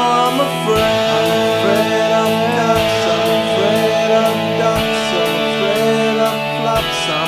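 Instrumental passage of a MIDI-rendered rock song demo: sustained chords under a lead line that slides and bends in pitch, with a drum hit about every two seconds.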